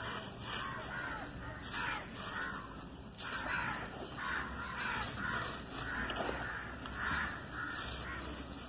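A hand squeezing and crumbling dusty charcoal powder and small chunks, with gritty, crunchy crackling; crows caw repeatedly through it.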